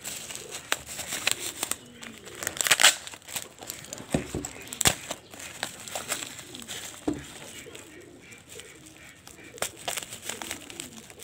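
Clear plastic wrap crinkling and crackling as a box cutter slits and peels it off a cardboard box, in scattered clicks with a denser burst about three seconds in. Two low knocks of the box being handled come around the middle.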